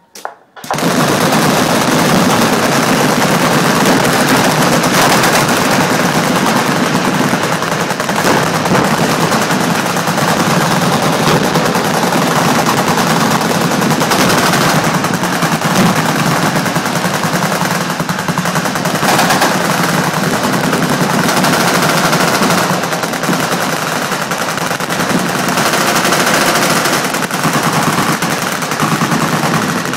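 Many machine guns firing at once along a firing line: continuous automatic fire that starts abruptly about half a second in and carries on without a break.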